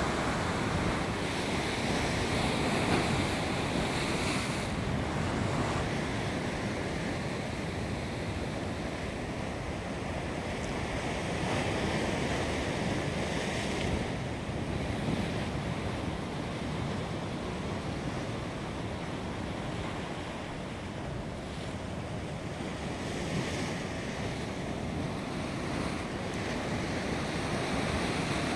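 Sea waves washing and breaking on the rocks of a shoreline, swelling and easing, with wind buffeting the microphone.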